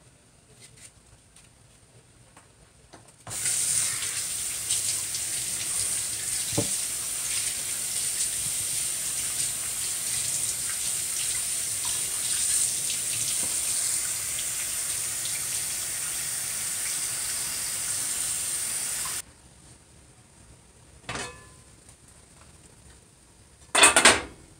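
Kitchen faucet running into a steel sink for about sixteen seconds, switched on and off abruptly, while cut vegetables are rinsed under it. Just before the end, a short loud clatter of a metal pot lid.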